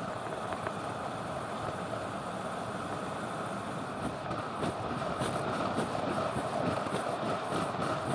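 Steady rush of wind on a handlebar-mounted camera's microphone mixed with a road bike's tyres running on asphalt at descending speed, growing a little louder toward the end.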